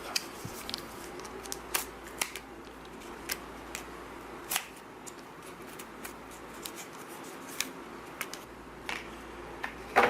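Scattered small sharp clicks and taps at uneven intervals from hands handling laptop DDR3 memory sticks and their packaging, with a louder click near the end.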